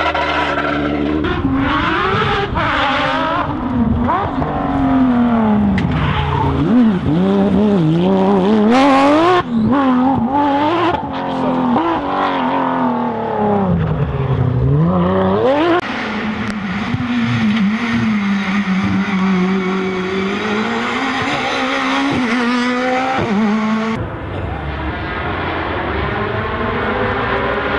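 Rally cars' engines revving hard, the pitch climbing and dropping again and again through gear changes and lifts off the throttle. The sound changes abruptly about sixteen and twenty-four seconds in, as one car's run gives way to another's.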